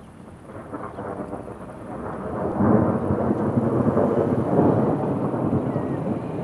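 Rolling thunder from an approaching storm under a shelf cloud, swelling over the first couple of seconds into a long, rough rumble that eases slightly near the end.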